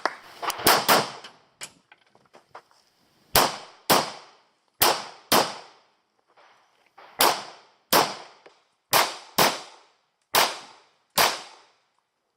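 Pistol shots fired in quick pairs about half a second apart: double taps on IPSC targets, with pauses of a second or two between pairs. A rapid cluster of three shots comes in the first second.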